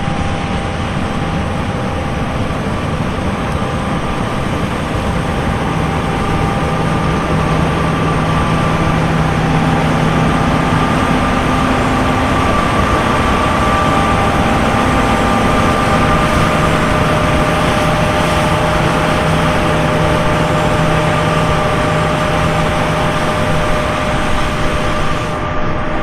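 A heavy engine running steadily under load: a loud, even mechanical noise with several steady whining tones over it, growing a little louder over the first several seconds.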